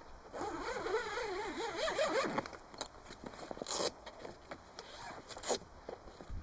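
Zip on a vehicle awning's fabric cover being pulled open in one long, wavering rasp, followed by a few short rasps and knocks as the cover is handled.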